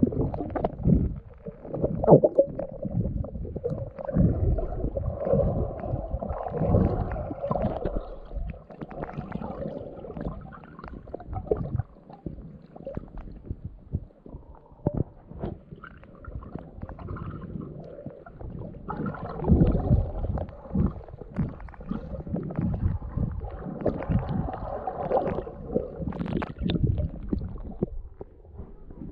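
Muffled water sloshing and gurgling heard through a camera held under the water, in uneven surges as the swimmer moves.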